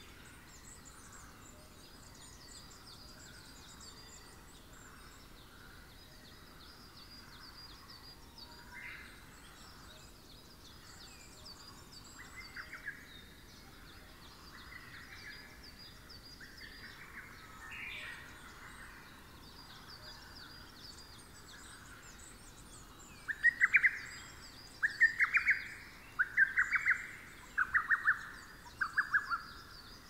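Forest songbirds singing, with high chirping songs going on throughout. Near the end, a nearby bird gives five loud, short bursts of rapid repeated notes, about a second apart.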